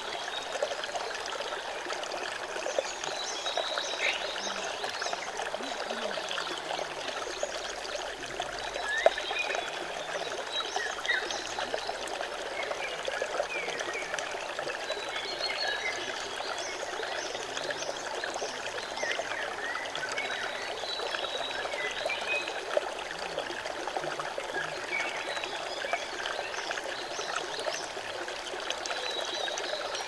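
Shallow rocky forest stream burbling and trickling over stones and pebbles, heard close to the water, with a brief louder plop about nine seconds in.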